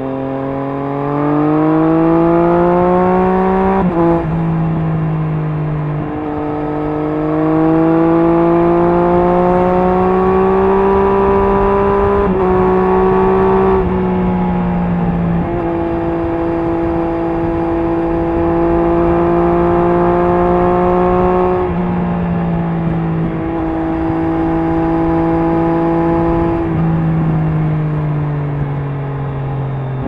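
Triumph Street Triple S three-cylinder engine through an SC Project SC1-R slip-on exhaust with its dB killer fitted, on the move. The revs climb, fall sharply about four seconds in, climb again to about twelve seconds in, then hold steady and fall lower near the end.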